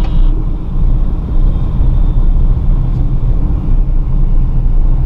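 Maruti Suzuki Celerio AMT's 1.0-litre three-cylinder K-series petrol engine running under way, heard inside the cabin as a steady low rumble mixed with road noise.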